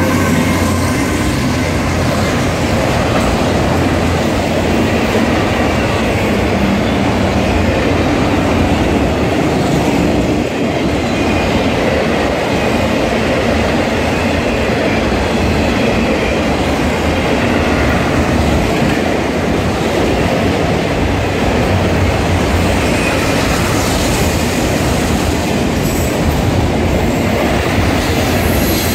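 Freight train passing close by at speed: a loud, steady rumble and clatter of steel wheels on the rails as autorack cars and boxcars go by. The lead locomotive's sound fades out just at the start.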